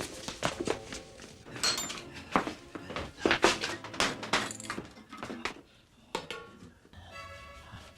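A run of knocks and clatters, irregular and close together, thinning out after about six seconds.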